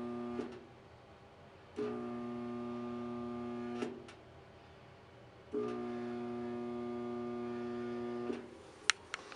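Hotpoint electric clothes dryer buzzing each time its start button is pressed, without the drum turning: a steady electrical buzz heard three times (the first ending about half a second in, then two of two to three seconds), each stopping with a small click when the button is let go. A few sharp clicks near the end.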